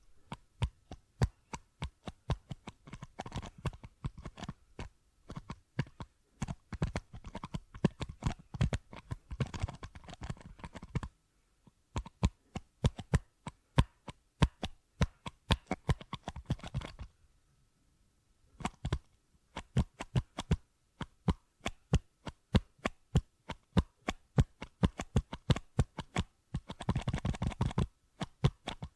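Fingertips tapping and sticking to a plastic bottle, heard from a microphone inside the bottle: sharp taps in quick irregular runs, with stretches of denser rubbing and crackling and a couple of brief pauses.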